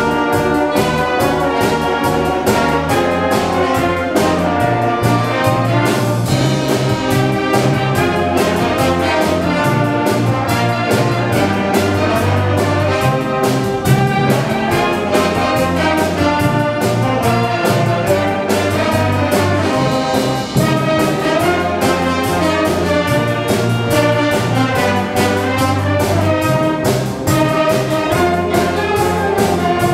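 Concert wind band of brass, saxophones and woodwinds playing a pop-song arrangement at full volume, over a steady beat.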